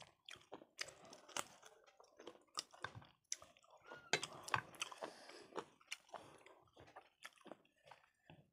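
Close-up eating sounds: mouths chewing and smacking food in short, irregular clicks, several a second.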